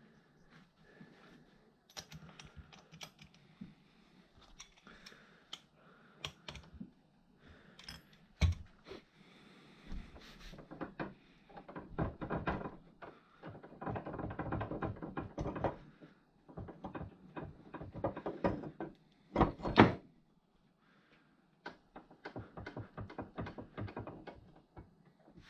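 Metal parts and hand tools clicking, knocking and clattering during work on an ATV engine, with bursts of rapid clicking and a few louder knocks.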